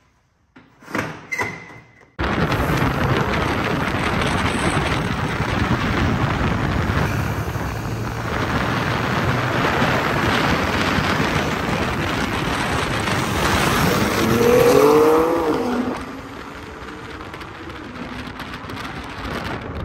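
Sports car accelerating hard on the road: loud engine and exhaust noise mixed with rushing air starts suddenly about two seconds in. Near the end the engine note climbs in pitch, then drops back to a quieter cruise.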